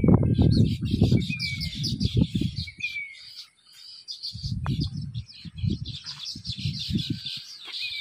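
A flock of small birds chirping and chattering in a dense chorus, with a short falling whistle now and then. A loud, uneven low rumble on the microphone runs under it and drops away briefly a little before the middle.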